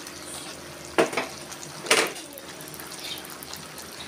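A wooden spatula stirs papaya and malunggay simmering in coconut milk in a pan, scraping and knocking against the pan twice, loudly, about one and two seconds in. Under the stirring is a steady sizzle from the cooking.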